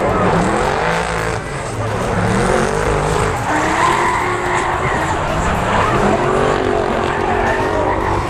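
Drift cars' engines revving up and falling back, with tyres squealing as the cars slide sideways in a tandem drift battle.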